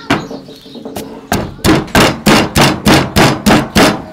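Wooden pestle pounding sliced herbs in a stone mortar: a couple of light knocks, then steady strikes about three a second.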